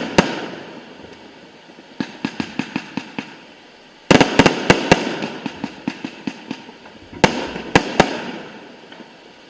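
Aerial fireworks bursting in volleys: sharp bangs, each followed by a fading crackle and echo. A run of quicker, lighter cracks comes about two seconds in, a dense loud cluster around four seconds, and three big bangs near the end.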